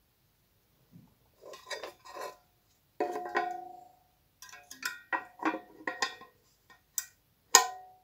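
Metal tin lid and can body clinking and knocking together as the lid is fitted over the tin-can kalimba and clasped shut, some knocks leaving a short metallic ring, with one sharp clank near the end.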